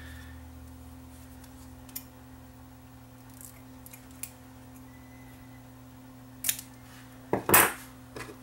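Light hand-tool handling while splicing an 8-track tape: a few small clicks and snips of scissors, then one louder brief clatter of a tool near the end, over a faint steady electrical hum.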